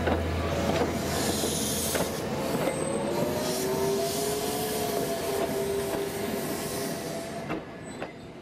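A train running on rails, its wheels squealing in a long wavering tone, with occasional clicks from the rail joints. The sound fades away near the end.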